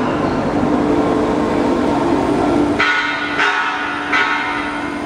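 Foam-splitting machine running with a steady hum. About three seconds in come three short ringing sounds, roughly half a second apart.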